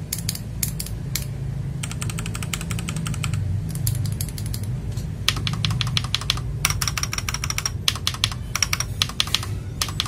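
Rapid typing on a mechanical keyboard with a steel plate: quick runs of crisp keystroke clacks in several bursts with short pauses between them.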